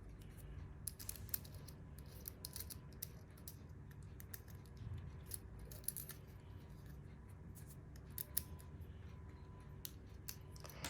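A screwdriver tightening small machine screws on a urinal pipe collar: faint, irregular small clicks and scrapes of metal.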